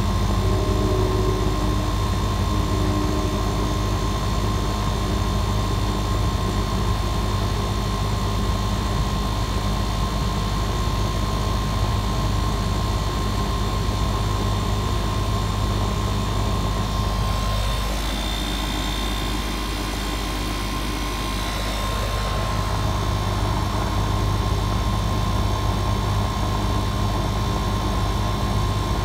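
Outdoor condensing unit of an R-410A central air conditioner running steadily, its compressor and condenser fan giving a constant hum with a steady whine, while the system is being recharged with refrigerant.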